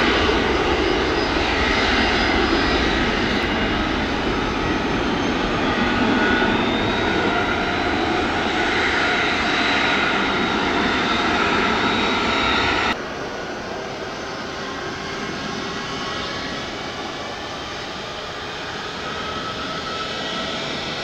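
Airliner engines running at a loud, steady level: a dense rushing noise with several whining tones. About two-thirds of the way through it cuts abruptly to a quieter aircraft engine sound whose whining tones slowly glide in pitch.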